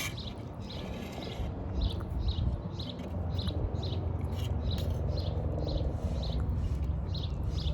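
A bird chirping over and over, short high chirps about two a second, over a steady low rumble.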